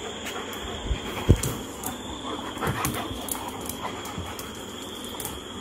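Dog making soft, short whimpering and yipping sounds, with one sharp thud about a second in.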